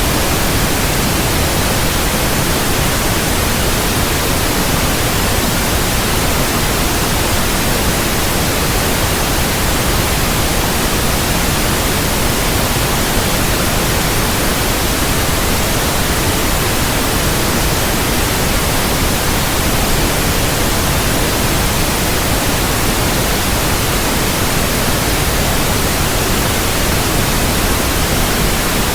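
Steady, unchanging white noise: an even hiss spread across all pitches, loud and constant.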